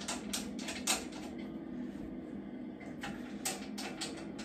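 Handling noise: a run of short, irregular clicks and crackles, a pause of about a second and a half, then another run, over a steady low hum.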